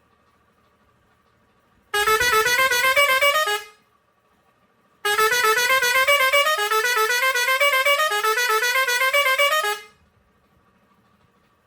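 Pioneairs 632S digital air horn with six steel trumpets playing a musical tune in two blasts. A short one comes about two seconds in, then a longer one of about five seconds, each made of quick notes that step up in pitch in repeated climbing runs.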